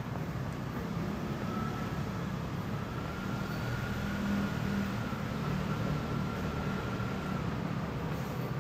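Steady low rumble of distant city traffic, with a faint thin whine held through the middle few seconds.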